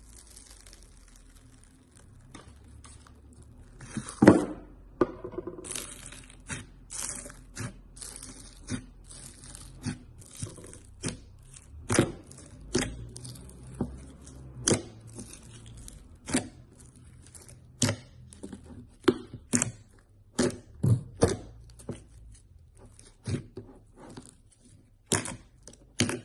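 Slime being squeezed, stretched and pressed by hand, giving a long run of sharp, irregular pops and clicks as air pockets burst, with sticky tearing sounds between them.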